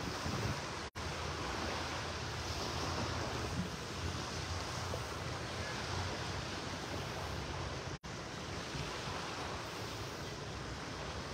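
Steady wash of surf on the beach mixed with wind buffeting the phone's microphone, a low rumble under an even hiss. The sound cuts out for an instant twice, about a second in and about eight seconds in.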